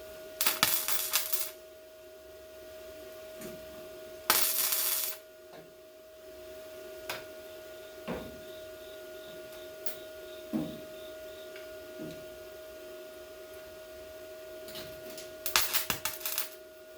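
A welder laying short tack welds on sheet-metal body panels: three bursts of about a second each, near the start, about four seconds in and near the end. A steady hum and a few light clicks run between them.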